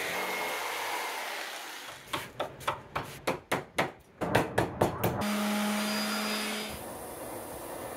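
A jigsaw cutting a pine butcher-block top makes a steady noise for about two seconds. Then come about a dozen sharp hammer blows on a chisel, three or four a second. After that a small power tool's motor hums steadily for about a second and a half.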